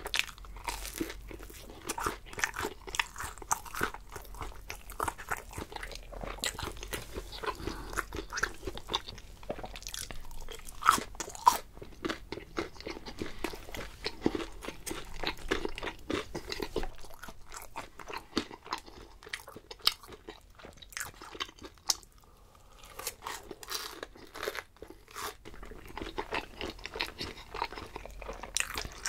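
A person eating: crunchy bites and chewing, with many short crisp crackles. It goes quieter for a moment about three-quarters of the way through.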